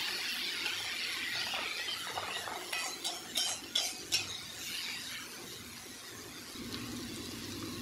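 Ground spice paste of shallots, garlic and chillies sizzling in oil in a metal pan, stirred and scraped with a metal spatula. A few sharp clinks of the spatula against the pan about three to four seconds in; the sizzle thins out toward the end.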